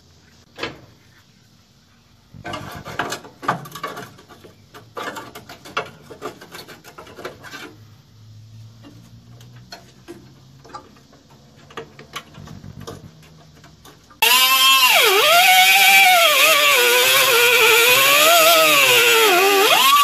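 Scattered clinks and knocks of sheet steel being handled. Then, about two-thirds of the way in, a small handheld grinder starts suddenly and runs loud against the rusty floor steel, its whine rising and falling as it is pressed into the cut.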